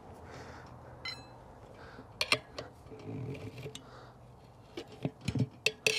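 Metal tire levers clicking against the rim of a spoked motorcycle wheel as they are worked in under the tire bead. A few sharp clicks come about two seconds in, and a quicker cluster comes near the end.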